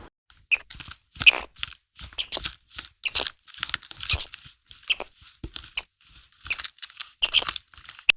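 An animal crunching food: a string of short, irregular crunches with brief pauses between them.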